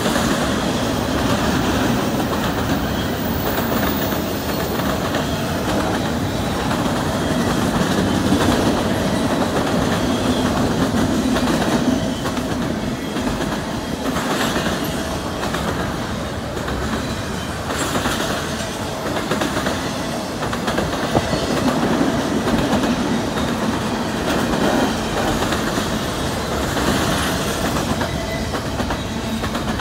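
Double-stack intermodal freight train rolling past, its container cars' steel wheels giving a steady rumble on the rails with scattered clicks as they cross rail joints.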